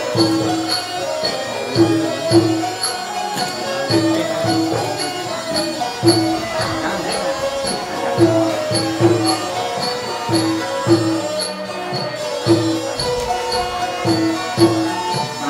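Traditional Khmer wedding music: a melody line over a steady drum beat, with a high jingling tick about twice a second.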